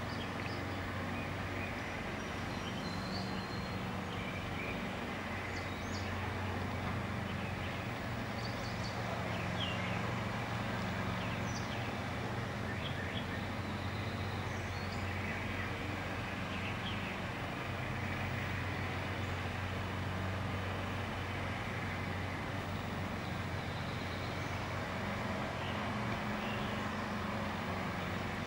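Steady low rumble of distant traffic with a hum, and faint short bird chirps scattered through it.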